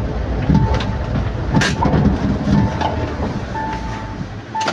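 Mahindra Thar running with a steady low rumble while a short electronic warning chime beeps about once a second. A single sharp knock sounds about one and a half seconds in.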